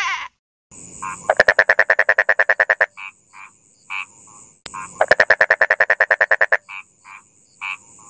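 Frog calling: two long, rapid pulsing trills, each followed by a few short single notes, over a steady high thin whine.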